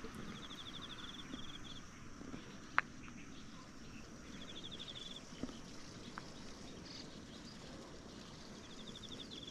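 Outdoor ambience with a high, rapid trill that comes three times, about every four seconds, and one sharp click about three seconds in.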